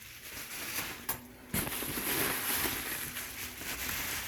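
Crumpled packing material rustling and crinkling as it is handled and pulled out of a box, starting suddenly about one and a half seconds in.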